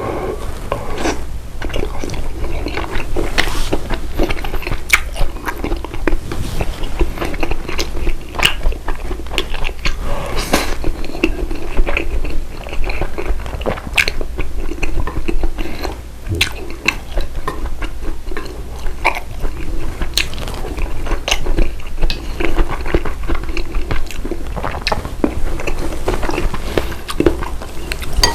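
A person chewing and biting food close to the microphone, with crunching and many small sharp clicks.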